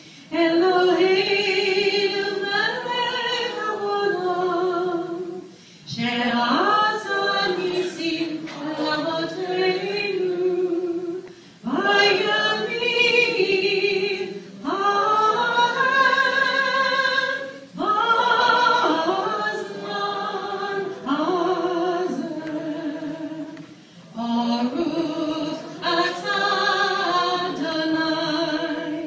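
Unaccompanied singing of a sung blessing, in phrases of a few seconds with short breaks between them, the voice holding long notes with a wavering vibrato.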